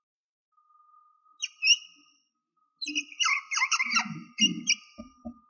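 Whiteboard marker squeaking in short chirps as a word is written in quick strokes, with a few soft knocks of the marker near the end. A faint steady high tone sounds underneath.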